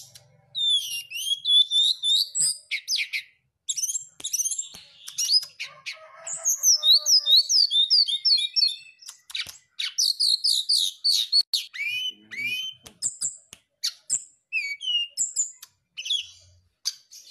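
Brown-chested jungle flycatcher singing a fast, varied string of high chirps and down-slurred whistled notes, in several phrases with brief pauses between them.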